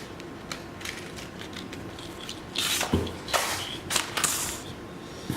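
Packaged fishing tackle being handled: packaging rubbing and scraping, with scattered light clicks and two louder scuffs about three and four seconds in.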